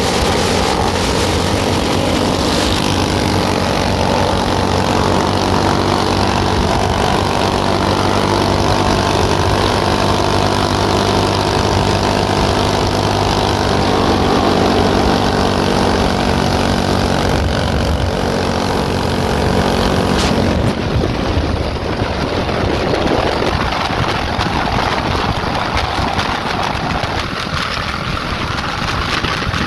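Mini bike engine running steadily at riding speed. About twenty seconds in, the engine note suddenly falls away and the sound eases off.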